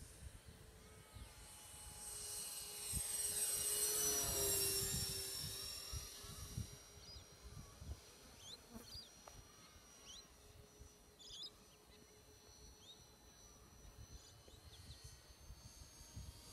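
Twin electric motors and propellers of an RC OV-10 Bronco model whining as it flies past. The sound swells to its loudest a few seconds in, dips in pitch as the plane passes, then fades to a faint distant drone.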